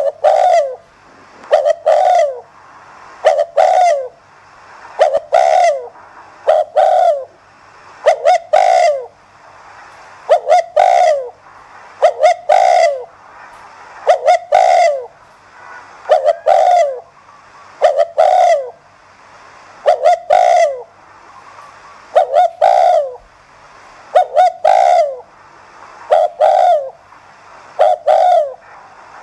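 Spotted dove cooing: a short phrase of two or three coos, each falling in pitch, repeated about every two seconds. It is the urging 'thúc gù' coo that keepers play to spur other doves to call.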